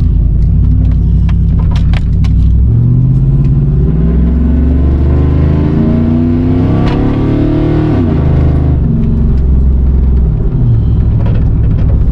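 Pickup truck engine running on the road and accelerating: its pitch climbs steadily from about two and a half seconds in, falls back sharply at about eight seconds, then runs lower and steady.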